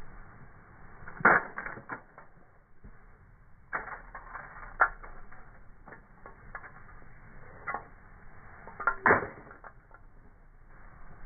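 A wooden stick striking a small red toy on asphalt: a string of sharp knocks and cracks, one every second or few, the toy breaking into pieces. The loudest strikes come about a second in and near the end.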